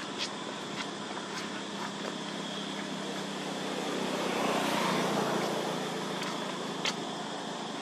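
Steady low engine hum, with the noise of a passing vehicle swelling and fading about four to five seconds in. A few faint clicks, one shortly before the end.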